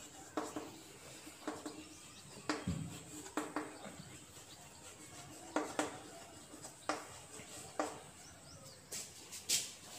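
Chalk writing on a chalkboard: short, sharp taps and scrapes as letters are written, about ten strokes at irregular spacing.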